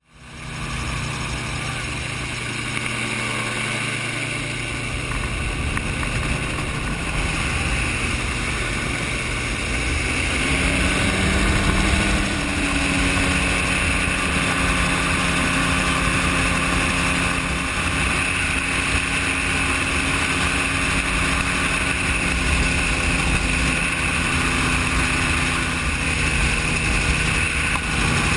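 Gyrocopter engine and propeller running steadily in flight, with wind rushing past the open cockpit. About ten seconds in, the engine note steps up in pitch and gets a little louder, then holds.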